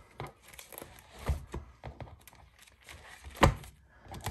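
Pages in plastic sheet protectors being flipped in a ring binder: rustling, with a few soft thumps as pages fall over, the loudest about three and a half seconds in.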